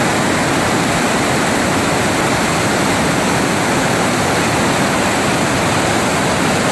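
Floodwater pouring through a dam's open spillway gates and churning below them: a loud, steady rushing roar of water.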